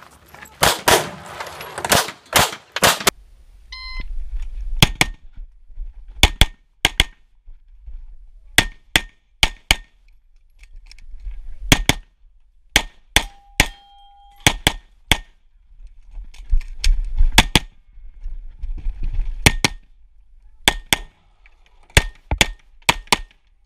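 Semi-automatic pistol fired in a rapid string, mostly in quick pairs of shots with pauses between, some shots followed by a short metallic ring from steel targets being hit.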